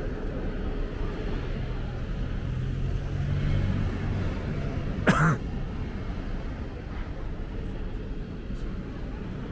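Busy city-street traffic noise with a vehicle engine humming low and steady, then one short, sharp sound, the loudest moment, about five seconds in.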